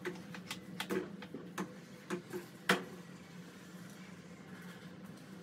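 A few light, irregular taps and clicks, about half a dozen in the first three seconds and one more near the end, over a faint steady hum.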